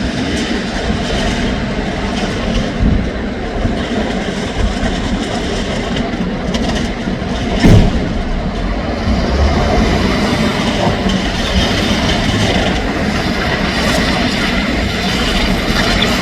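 Mobile rubble-crushing machine running, with a steady heavy mechanical din and rubble rattling through it. There is one sharp bang about halfway through.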